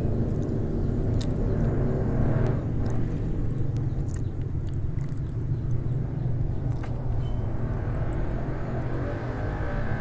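A steady low rumble runs throughout, with a few faint, sharp clicks of eating as fried chicken wings are bitten and chewed.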